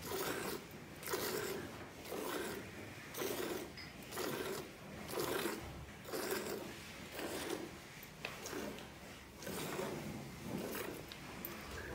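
Milk squirting from a cow's teats into a metal pail half full of frothy milk, hand milking: a regular rhythm of short hissing squirts, about two a second.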